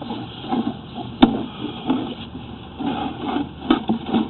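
Irregular knocks and clatter of sewer inspection camera gear being handled and fed into the pipe, with a sharp click about a second in and another near the end, over a low steady background noise.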